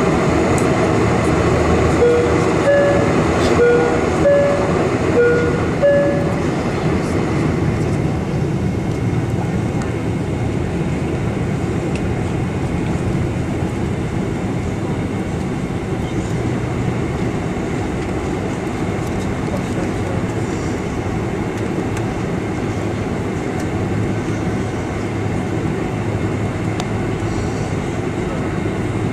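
Airliner cabin noise during takeoff: steady jet engine roar and rumble heard from inside the cabin, a little louder in the first few seconds. A few short pitched notes, alternating between two pitches, sound between about two and six seconds in.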